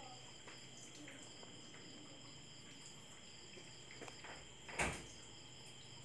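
Quiet room tone with a faint steady high-pitched whine and a few soft clicks, broken by a single short thump about five seconds in.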